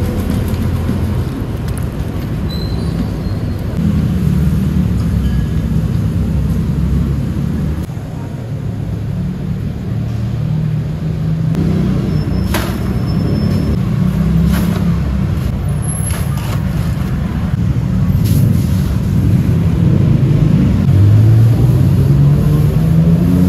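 Engine rumble of nearby street traffic, its pitch wandering up and down and rising near the end as a vehicle speeds up. A few sharp clatters come in the middle.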